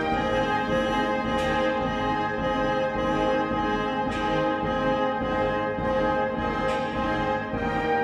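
Orchestral background music led by brass, with long held chords that shift every few seconds.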